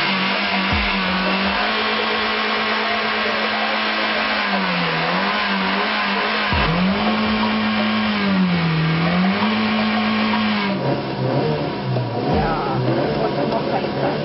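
Old Kia car engine revved hard with the car standing still, held high around 6,000 rpm. The revs dip briefly and climb back several times, then run lower and more unevenly near the end.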